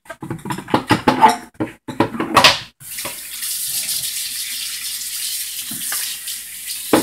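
Kitchen tap turned on about three seconds in and running steadily into a sink.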